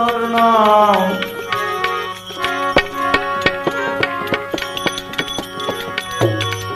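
Gujarati devotional bhajan: the singer holds the end of a sung line until about a second in, then an instrumental interlude follows, with hand-drum strokes over steady held melody notes.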